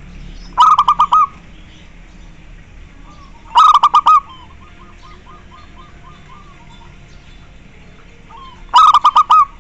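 Zebra dove (perkutut) cooing: three quick bursts of five or six staccato notes each, about a second in, near four seconds and near the end. A fainter, longer run of similar notes follows the second burst.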